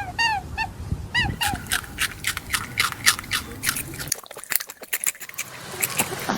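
A rabbit chewing food: a quick run of crisp, crunchy clicks. Short, repeated peeping bird calls are heard in the first second or so and again near the end.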